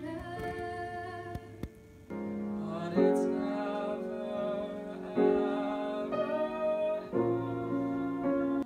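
Piano accompaniment playing held chords, moving to a new chord about every one to two seconds.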